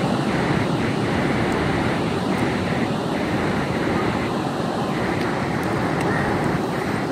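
Ocean surf washing steadily onto a sandy beach, with some wind noise on the microphone.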